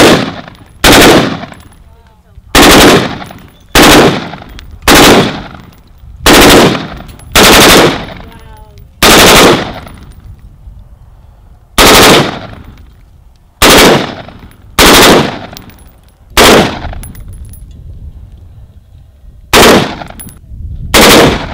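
AR-style rifles fired in short, very loud bursts of rapid fire, about fourteen bursts spaced irregularly, each lasting around half a second with a fading echo after it.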